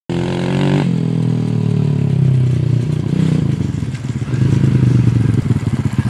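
Minibike's 107cc single-cylinder four-stroke engine (a Honda clone) running loud at high revs, then the throttle is backed off about a second in. The revs sag over the next few seconds and drop to a low, uneven chug near the end.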